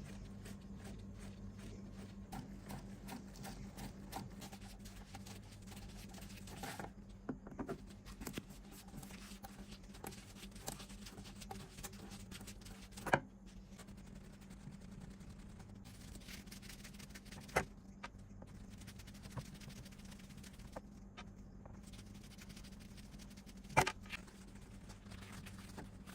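Light, scattered clicks and taps of small parts and tools being handled, with a few sharper knocks, over a steady low hum.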